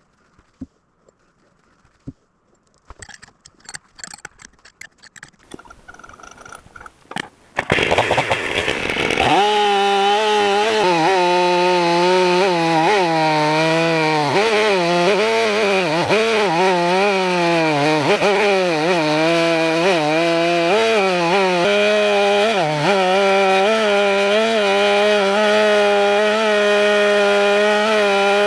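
Scattered light clicks and rustles, then about eight seconds in a chainsaw comes in at full throttle and runs loud and high-revving to the end, its pitch dipping and recovering as the bar rips lengthwise through a log in an Alaska chainsaw mill, then holding steadier.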